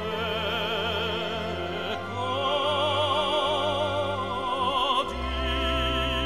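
Background music: a classical-style vocal song, a singer holding long notes with strong vibrato over orchestral accompaniment, the harmony changing about two seconds in and again about five seconds in.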